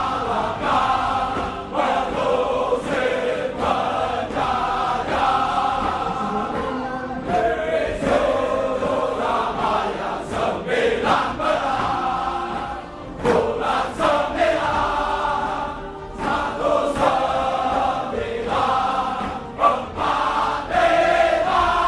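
A choir singing a slow song over background music.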